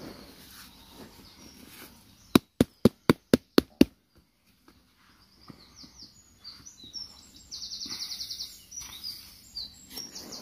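A quick run of seven sharp knocks, about four a second, a couple of seconds in, the loudest sound. Birds sing through the second half, with high chirps and fast trills.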